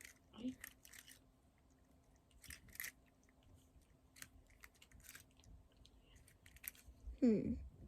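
Rubik's cubes being twisted quickly: faint, irregular plastic clicks and rattles of the layers turning. A brief vocal sound is heard about seven seconds in.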